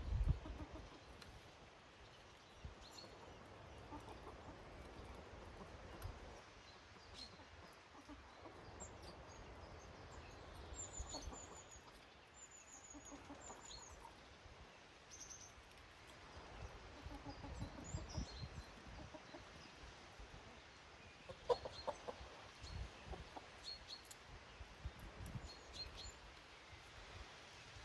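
Domestic hens clucking softly now and then, the loudest clucks about three-quarters of the way through, with high thin chirps of small garden birds in the middle and a low outdoor rumble underneath.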